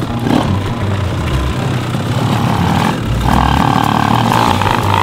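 Shifter kart with a two-stroke 125cc engine being push-started on concrete, its engine running loud, with a higher-pitched buzz coming in a little past the middle.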